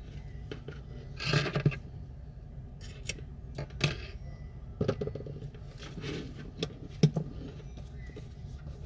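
Small repair tools and phone parts clicking and clattering on a work surface, with half a dozen sharp taps spread over several seconds and a steady low hum underneath.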